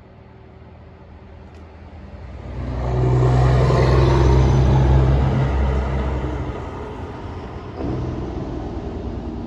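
Loaded diesel coal truck driving past on the road, its deep engine drone swelling to a peak about three to five seconds in and then fading, with a second sudden rise just before the end.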